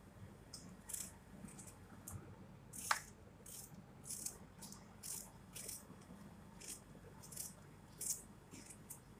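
Small kitchen knife cutting a tomato into pieces in the hand: a short crisp slicing sound with each cut, about one or two cuts a second, with one sharper click about three seconds in.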